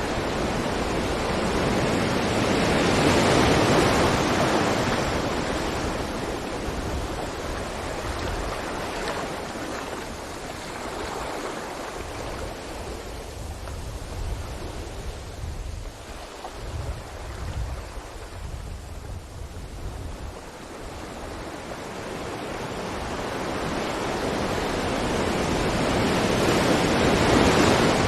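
Sea waves breaking on a beach: one wave swells and breaks about three to four seconds in and washes back, then the next builds to break near the end, with a low rumble underneath.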